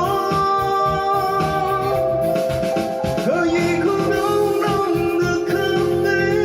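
Funk-arranged pop music: a steady drum and bass groove under long held melody notes, with guitar.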